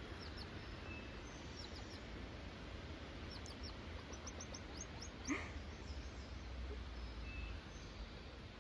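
Small songbirds chirping: several quick runs of high, short notes, with one brief louder sound about five seconds in, over a low steady rumble.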